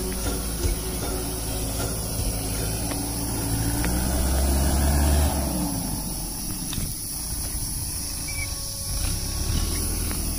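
Tractor engine running, loudest about five seconds in, then falling in pitch as it eases off.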